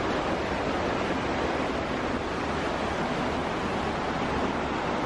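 Fast mountain river rushing over rocky rapids close below: a steady roar of white water.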